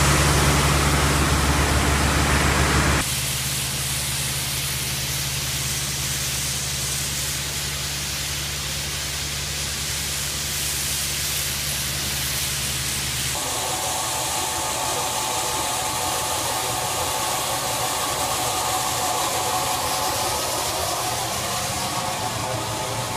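Kongskilde pneumatic suck-blow grain conveyor running: a steady deep machine hum with a rushing-air hiss. About three seconds in it drops abruptly in level, and a little past halfway the deepest hum fades while a higher, steady whine comes in.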